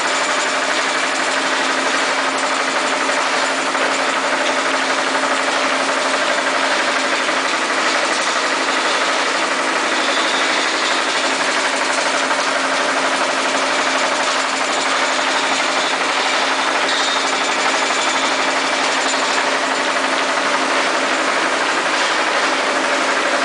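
Steady mechanical din of a shallot sorting line running: the conveyor belt and roller bed turning, with a constant hum under it.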